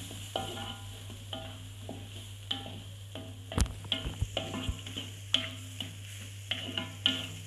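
A spatula scraping and knocking against a metal wok as mustard greens and egg are stir-fried, with a faint sizzle from the food. The strokes come every half second or so, with one sharper knock about halfway through.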